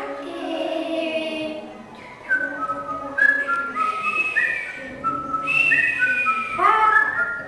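A child whistling a string of short held notes that step up and down in pitch, with a child's voiced sounds at the start and again near the end.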